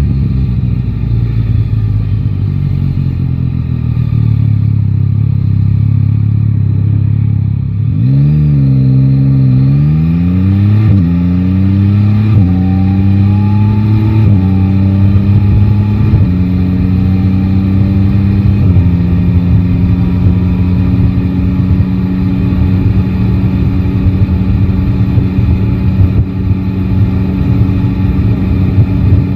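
Yamaha Tracer 9 GT's 890 cc inline-three engine heard from the rider's seat. It runs low and steady, then about eight seconds in it pulls away and accelerates up through the gears, the pitch rising and dropping back at each of about five upshifts. It then settles to a steady cruise.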